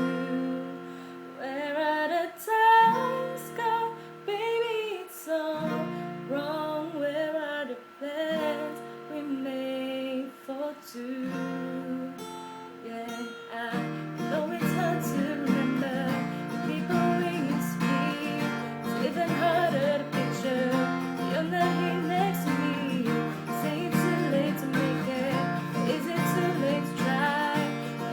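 A woman singing over an acoustic guitar. The guitar holds separate chords at first, then strums steadily from about halfway through.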